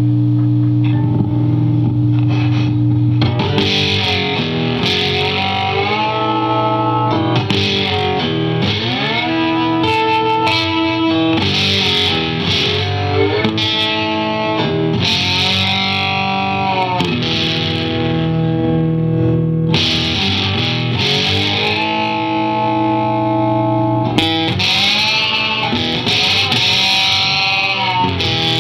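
Handmade four-string cigar box guitar with a piezo pickup, played amplified through distortion. It opens on a held low note, then from about three seconds in plays a riff of plucked notes with frequent slides and bends in pitch.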